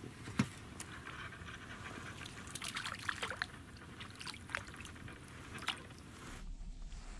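Water dripping and trickling, with small plops, and one sharp click about half a second in.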